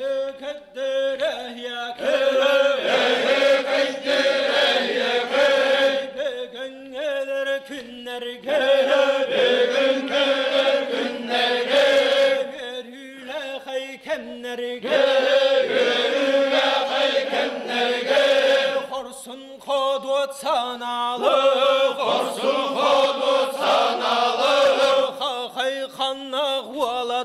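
Men's voices chanting a Yakut osuokhai, the circle-dance song, in drawn-out phrases a few seconds long with short breaks between them.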